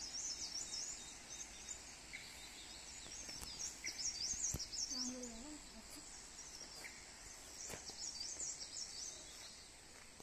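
Small birds chirping in quick clusters over the steady rush of a river below.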